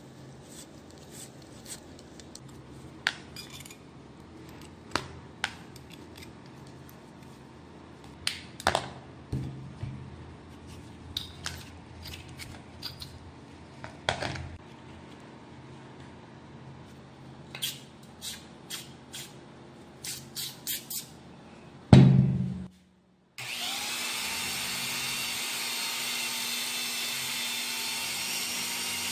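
Metal tools tapping and scraping on rusty gun parts in scattered clicks, then a loud thump and a short silence. After that a small rotary tool spins a bristle brush with a steady high whine, scrubbing rust from the part under cleaning foam.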